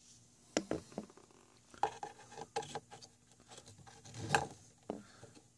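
Handling noises from a plastic panel-mount 12-volt/USB outlet and its parts: scattered light clicks and knocks, the loudest a little past four seconds in.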